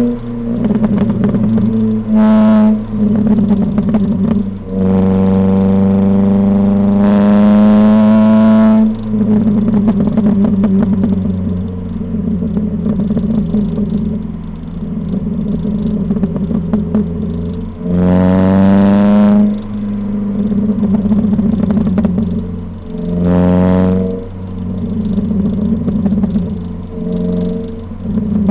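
Ford Fiesta ST150's 2.0-litre four-cylinder engine heard through its modified exhaust, revving up through the gears in several pulls: a long one about five seconds in, shorter ones later. Between the pulls, when the throttle is lifted, the exhaust burbles and crackles on the overrun.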